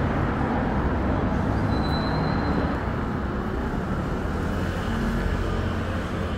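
Steady city street traffic noise: a constant low rumble of road vehicles, with a brief high tone about two seconds in.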